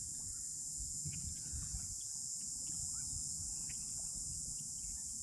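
Steady high-pitched drone of insects, with a low rumble of wind on the microphone underneath and a few faint ticks.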